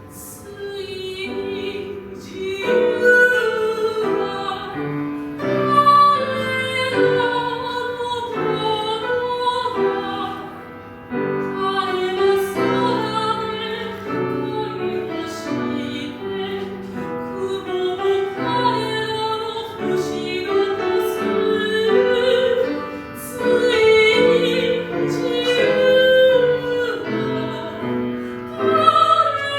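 Soprano singing a classical art song with piano accompaniment; her voice comes in about two seconds in, over piano chords, with long notes held with vibrato.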